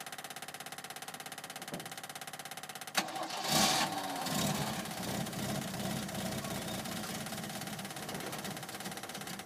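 1951 Willys Jeep engine: a steady rapid ticking, then about three seconds in a sharp click and the engine catches with a loud burst. It revs briefly, falling in pitch, and settles into a fast idle.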